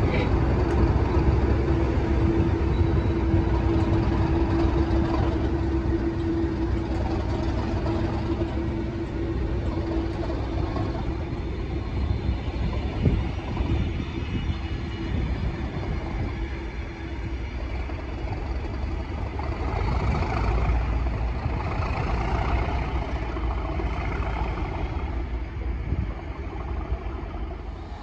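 Class 37 diesel locomotive's English Electric V12 engine running as it pulls away slowly with a coach in tow, with a steady low rumble throughout. A steady tone sounds over the engine for about the first ten seconds, then fades as the locomotive moves off.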